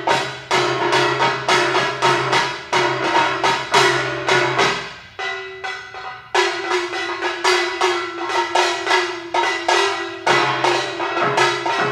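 Hand-held gongs struck with mallets in an interlocking rhythm, a few strokes a second, each stroke ringing on in steady pitched tones. About five seconds in the strokes thin out for a moment while one tone rings alone, then the pattern picks up again.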